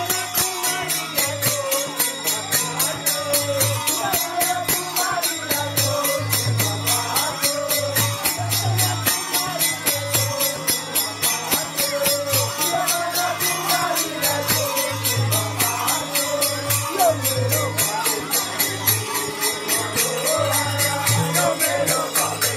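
Lively percussion music with low drum beats and a fast, even clashing of small cymbals and jingling bells, the kind that accompanies a Lakhe masked dance.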